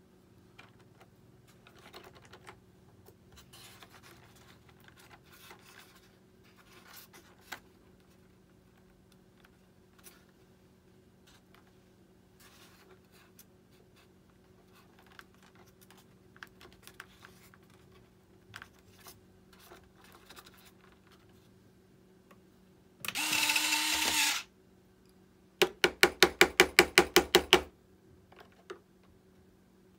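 Light clicks and taps of small parts being handled. Then a small electric motor spins up and runs for about a second and a half, and a second later gives a loud rapid clatter of about ten clicks a second for about two seconds.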